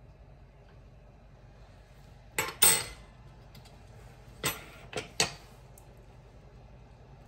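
Kitchen cookware and utensils clattering: five sharp metal clanks, a close pair about two and a half seconds in, the second the loudest, then three more about two seconds later.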